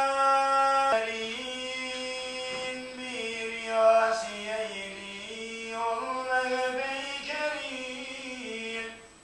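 A man chanting solo and unaccompanied, a Turkish mevlüt recitation. A long held note ends about a second in. Then comes a slow, ornamented melodic line of held notes, which stops near the end.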